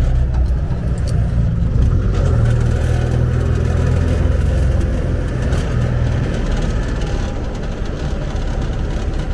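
Engine of an old 1972 jeep running as it drives, heard from inside the canvas-topped cab as a steady low rumble.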